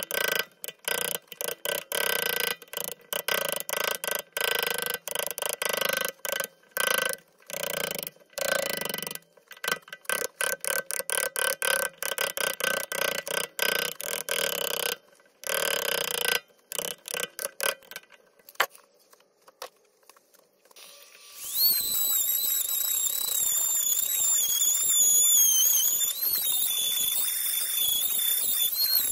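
A hand gouge cutting into a yew blank in many quick, short scraping strokes. Later a handheld rotary tool starts up with a loud, high-pitched whine that wavers in pitch as it grinds into the wood.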